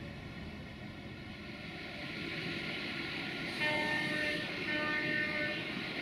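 Horn of a 060-DA1 (LDE2100) diesel-electric locomotive giving two short blasts, each under a second, about a second apart. Under the blasts is the steady rumble of the train.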